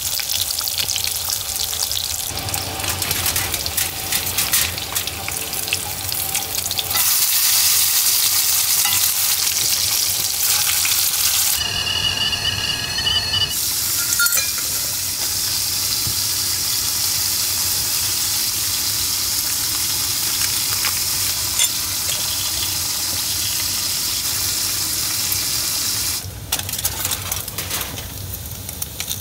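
Bacon frying in a pan, a steady sizzling hiss with light crackle.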